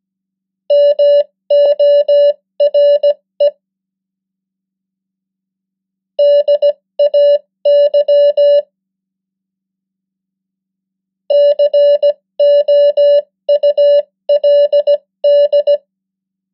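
Morse code practice tone sent at 15 words per minute: a steady beep keyed in short and long marks, forming three words, each a cluster of dits and dahs separated by pauses of a few seconds.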